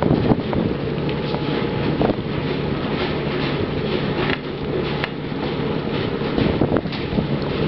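A small fishing boat's engine running steadily under water wash, with a few sharp knocks scattered through.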